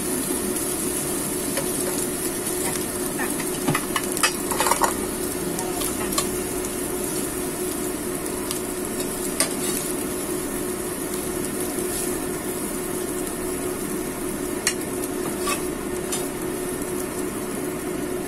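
Egg frying in a non-stick pan, sizzling steadily, while a metal spatula scrapes and turns the pieces, with a cluster of clicks and taps about four seconds in and single taps scattered later. A steady low hum runs underneath.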